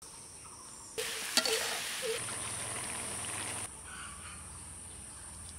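Outdoor village ambience with a steady high insect drone. About a second in, a louder hissing stretch with one sharp click breaks in, along with a few short chicken clucks. It cuts back to quieter ambience near the four-second mark.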